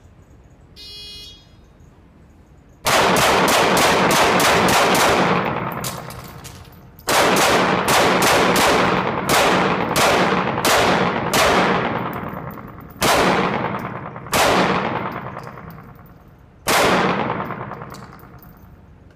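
A short electronic shot-timer beep, then 9mm pistol shots from an H&K VP9LE echoing in a large hall: a fast string of about eight shots, a pause of about two seconds, then more shots fired more slowly, the last few well apart.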